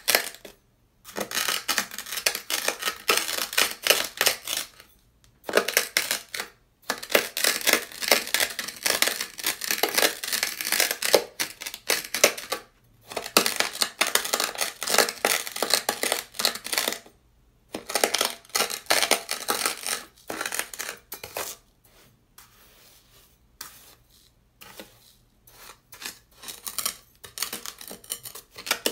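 Metal knife blade pressing and dragging through a pile of dry, coarse beach sand on sandpaper, making dense, gritty crunches. The crunching comes in runs of a few seconds separated by brief pauses between strokes, with a sparser, quieter stretch a little past the middle.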